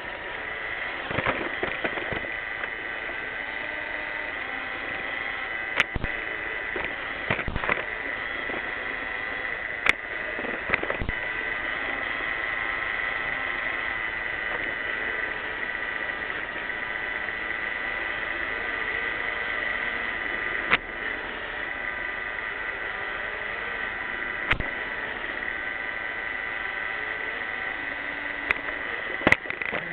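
iRobot Roomba 600-series robot vacuum running: a steady motor hum with a high whine, broken by a handful of short knocks.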